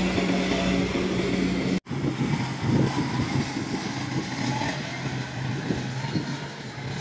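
Rice combine harvester's diesel engine running steadily at close range. After an edit cut about two seconds in, a more distant engine drone carries on, lower in pitch and with a rougher rumble under it.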